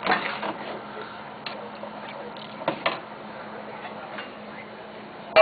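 Kitchen pots, lids and utensils being handled: scattered light clicks and knocks over a steady low hum, with a louder clatter of dishes at the very end.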